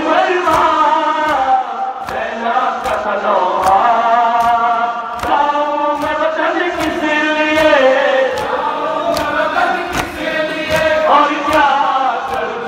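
Male voices singing a Shia noha lament, a crowd chanting along in unison, over a steady rhythm of hands beating on chests (matam), about three beats every two seconds.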